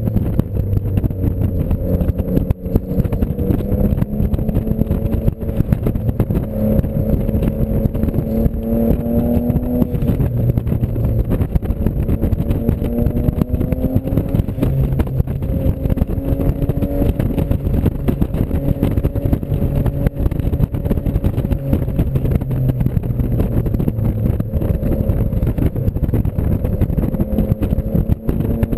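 Car engine heard from inside the cabin while driven round a racetrack, its note climbing under acceleration and dropping back several times, over a loud low rumble.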